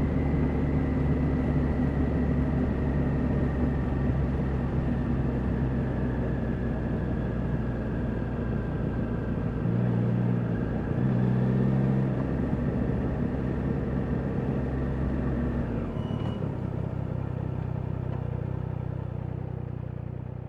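Triumph Daytona 660's inline three-cylinder engine running steadily at low revs, with two short rises in the engine note about halfway through.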